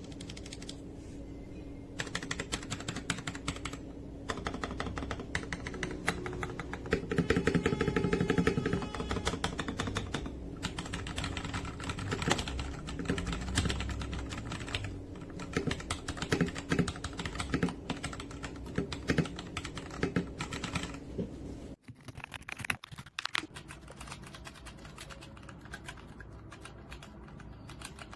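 Typing on a mechanical keyboard fitted with Akko V3 Penguin silent tactile switches: rapid key presses in runs with short pauses between them.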